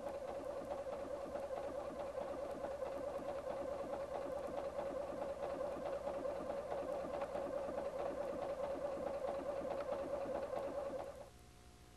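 Husqvarna Viking Platinum 770 computerized sewing machine sewing at a steady speed, a steady hum with fast needle ticks, as it stitches lace to a fabric edge with a bridging stitch. It stops about eleven seconds in.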